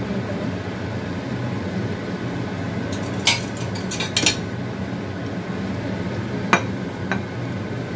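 Spatula stirring chicken and eggs in a thick sauce in a wok, knocking and scraping against the pan in a few sharp clicks about three, four and six and a half seconds in, over a steady rushing background from the lit gas burner.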